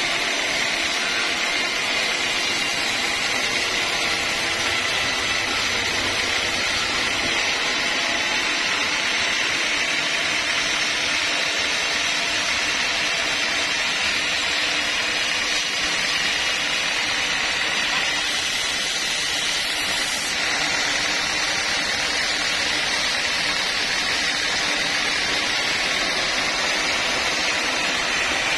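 Vertical sawmill band saw running and cutting lengthwise through a large log: a steady, even blade-in-wood noise with a high tone running through it and the machine's running beneath.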